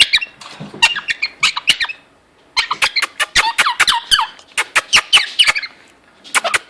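Quaker parrot chattering in rapid short squawks and chirps, with sharp clicks mixed in. It pauses briefly about two seconds in, then runs on in a dense burst of calls.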